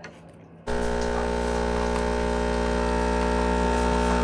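An electric kitchen appliance switched on about a second in, running with a loud, steady electrical hum.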